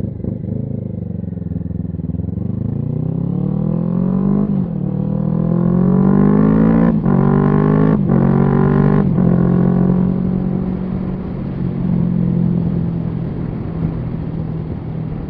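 Kawasaki Z650 parallel-twin motorcycle engine accelerating hard through the gears, its pitch rising and then dropping at each of several quick upshifts, before it settles into a steady cruise, with wind rushing past the helmet.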